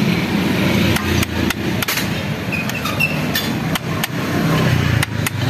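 Hammer tapping on a motorbike's metal cooling-system cover plate: a run of a dozen or so sharp knocks at uneven spacing.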